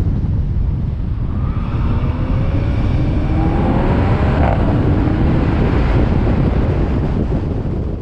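Car driving on an open road: heavy wind buffeting on an exterior microphone over the car's engine, whose note rises as it accelerates from about two seconds in. The sound begins to fade near the end.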